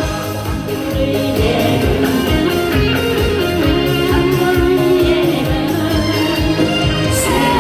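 A Korean song played over a backing track with a steady beat and guitar, with a voice singing the melody.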